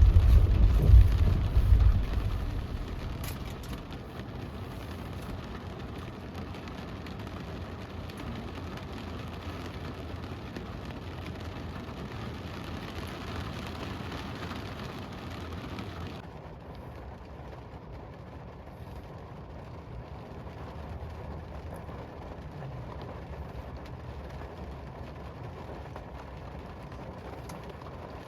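Steady rain hiss on a car, with a deep rumble fading away over the first few seconds. About sixteen seconds in, the hiss suddenly turns duller.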